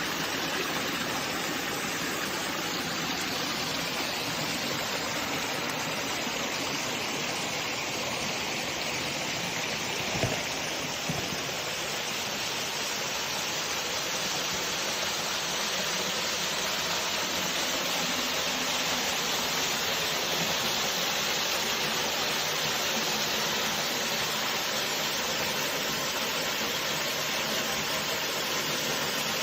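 Waterfall on a creek: a steady rush of falling water, with two brief knocks about ten and eleven seconds in.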